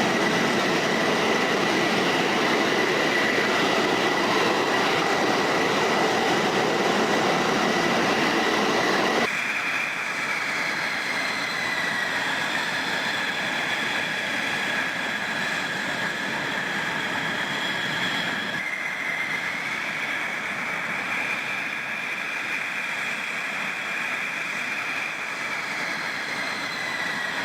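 F-16 fighter jet engine running with a steady rushing noise and a high whine over it. The recording cuts abruptly twice to other takes, quieter in the low end, where the whine bends slowly up and back down.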